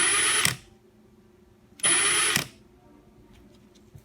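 Milwaukee M18 Fuel mid-torque 1/2-inch cordless impact wrench (2861-20) run with two short trigger pulls on its highest speed setting, each burst about half a second long with a high motor whine.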